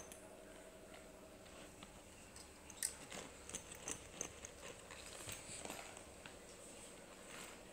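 Faint clicks, taps and rustling of a small child handling a plastic toy and a fabric school backpack. The clicks come mostly in the middle, over a faint steady hum.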